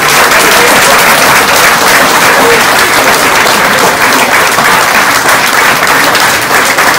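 Audience applauding: many hands clapping in a dense, steady, loud wash.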